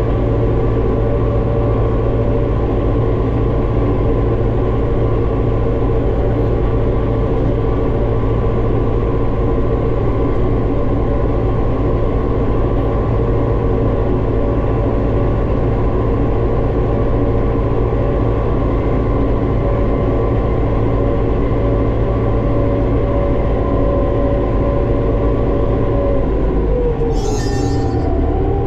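Armatrac 1104 Lux tractor engine running steadily at working speed. Near the end the engine note drops as it slows, and there is a brief hiss.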